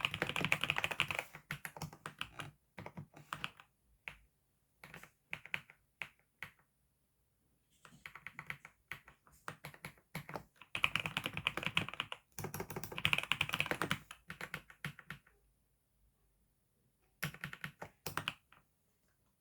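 Typing on a new computer keyboard: fast runs of keystrokes broken by short pauses and a few scattered single strokes, with a last brief run near the end.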